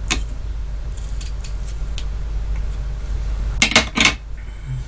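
Small kitchen knife cutting into a sweet persimmon, with a few light crisp clicks. About three and a half seconds in come three sharper clacks as the knife meets the ceramic dish and is set down on it. Under it all runs a steady low hum.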